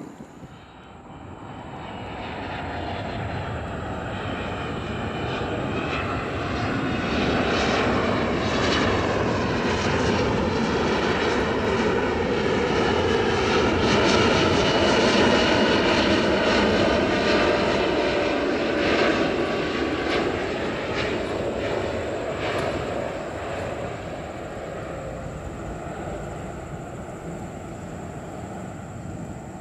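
Jet engines of a Boeing 777 airliner on final approach, gear down. The rumble swells to its loudest about halfway through and then fades, with a whine that falls slowly in pitch as the aircraft passes.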